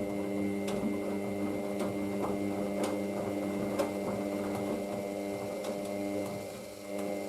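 Hoover DYN9144D3X washing machine's motor turning the drum in a load-balancing attempt before the intermediate spin: a steady motor whine with a few faint clicks.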